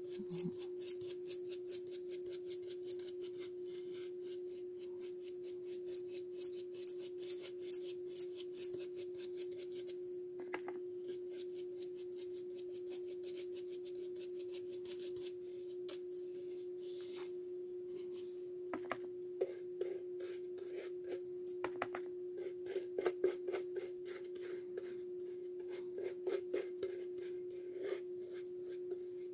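Paintbrush working gloss varnish onto a plastic coffee container: quick light ticks and scratches in runs, busiest in the first ten seconds and again in the last third, over a steady hum.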